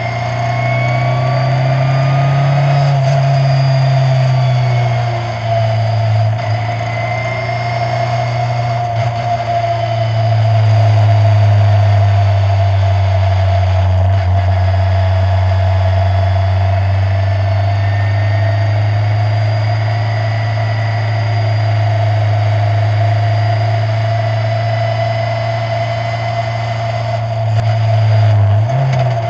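Engine of an open-wheel formula racing car heard from its onboard camera at speed: a steady low drone that drops in pitch about five seconds in and again about ten seconds in, then holds, rising briefly near the end.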